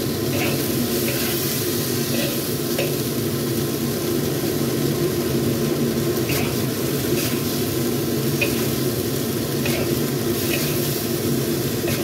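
A metal spatula stirring and tossing bitter melon and beef in a wok, with short scrapes and taps against the pan every second or so over steady sizzling and a low hum.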